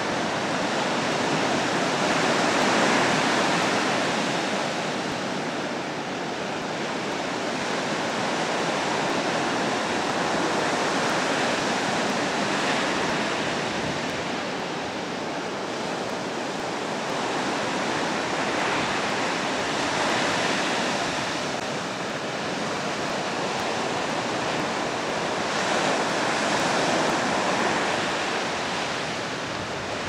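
Ocean surf washing in, a steady rush of broken water that swells and eases every several seconds as waves break.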